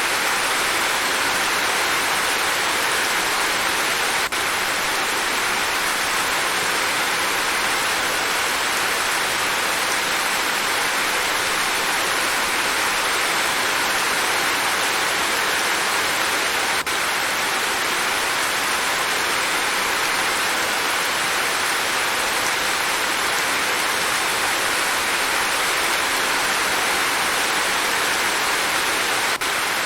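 Steady, even rain falling: a continuous hiss of many drops with no let-up.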